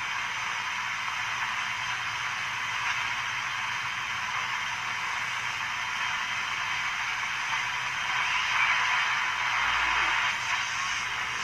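Steady static hiss from a Hallicrafters S-38 shortwave receiver's speaker as it is tuned across the 80-meter band, with no station coming through; the hiss grows a little louder about eight seconds in.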